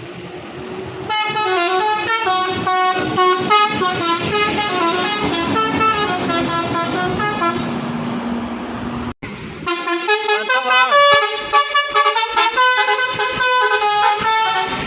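Bus 'basuri' musical horn playing a melody of stepped notes, starting about a second in. The tune breaks off abruptly just after nine seconds and another horn melody begins.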